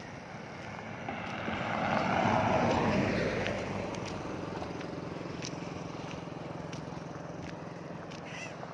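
A motor vehicle passing by on the road: its noise builds over about two seconds, peaks a couple of seconds in, then fades away slowly.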